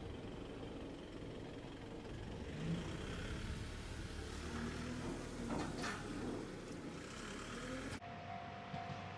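Steady rumble of a vehicle or train running, with an engine note in it; near the end, after an abrupt cut, a level-crossing warning bell ringing in a steady, repeating tone.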